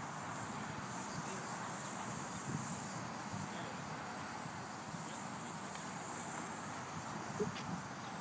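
Steady outdoor ambience with a high, even insect drone, and one brief soft knock near the end.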